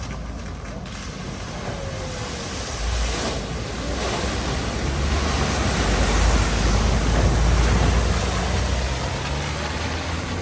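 A car driving through deep floodwater, its engine rumbling under a rush of splashing water that swells to a peak about six to eight seconds in and then eases off.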